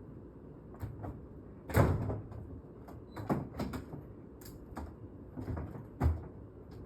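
A window air-conditioning unit being pushed and shifted in the window frame: a series of knocks, bumps and scrapes, loudest about two seconds in and again near the end.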